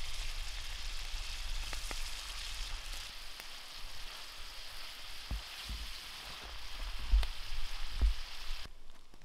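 Meat and onion frying in a pan, sizzling steadily. A few low thumps come in the second half, and the sizzle cuts off suddenly near the end.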